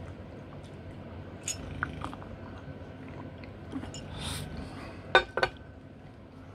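A few small clinks and knocks from a ceramic mug being handled, the loudest a pair of sharp clicks about five seconds in, over a low steady room hum.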